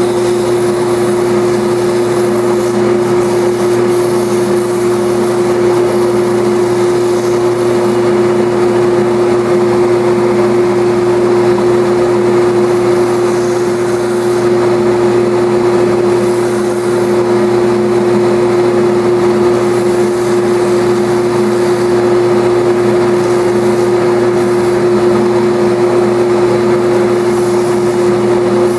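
JET belt and disc sander running with a steady, loud motor hum while a balsa-wood dragster body is sanded against the belt.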